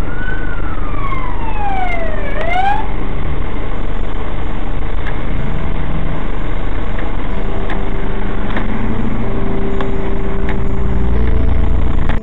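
Loud, steady road and engine noise inside a moving car, picked up by the dashcam's microphone. A siren wails once in the first three seconds, rising, falling and starting to rise again.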